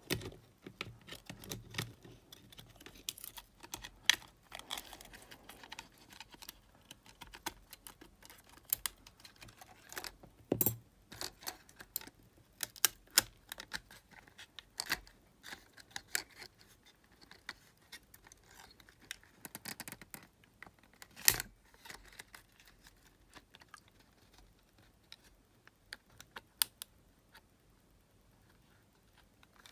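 Irregular small clicks and taps of plastic and metal parts as the circuit board and tape mechanism of a Sony TCM-450 cassette recorder are handled and fitted into its shell, with a few sharper knocks about 4, 10 and 21 seconds in.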